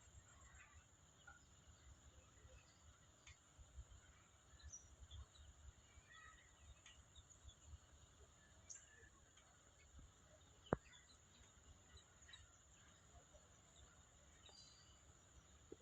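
Faint, scattered bird chirps over a steady high-pitched tone and low rumbling background noise, with one sharp click about ten and a half seconds in.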